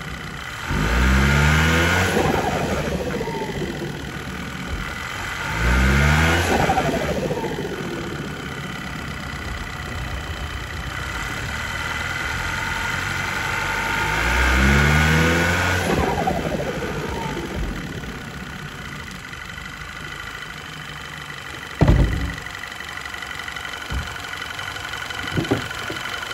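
Audi Q5 2.0T turbocharged four-cylinder engine heard from on top of its intake manifold, revving up under boost three times and falling away after each, with its turbo recirculation valve unplugged so that the compressor surges, air pulsing back through the turbocharger. Near the end there is a single sharp thump.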